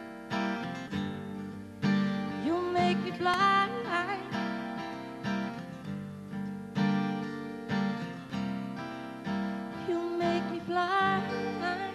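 Acoustic guitar strumming chords in a live acoustic pop song. Twice a wavering, pitch-bending wordless vocal line rises over the chords, once a few seconds in and again near the end.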